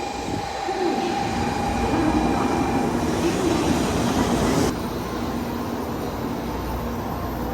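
Shinkansen high-speed train running on the rails with a steady rushing noise. The sound changes abruptly about two-thirds of the way in, the hiss above it dropping away at once.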